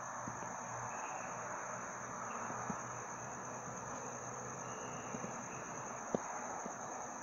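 Steady high-pitched chorus of crickets at night, over a constant background hiss, with a few faint clicks and one sharper click about six seconds in.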